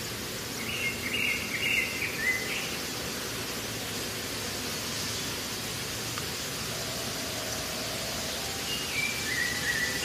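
Outdoor ambience: a steady background hiss with birds chirping in short high phrases about a second in and again near the end.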